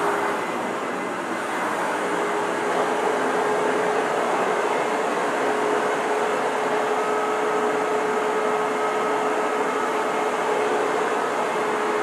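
Hoover WindTunnel vacuum cleaner running steadily: a rush of air with a steady whine, dipping a little in level about a second in.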